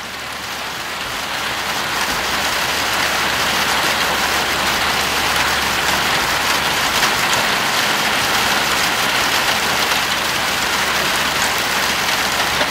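Heavy rainstorm: rain falling steadily as a dense, even hiss, swelling a little over the first two seconds and then holding.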